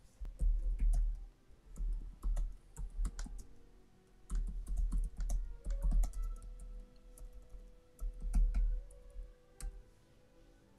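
Typing and clicking on a computer keyboard: irregular sharp clicks in bursts, with heavy low thumps among them.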